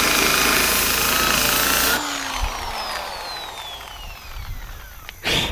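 Wire wheel on a power tool scrubbing rust off a truck's steel body panel: loud harsh grinding over a steady motor whine. About two seconds in it stops abruptly and the wheel spins down with a falling whine over the next few seconds. A short knock comes near the end.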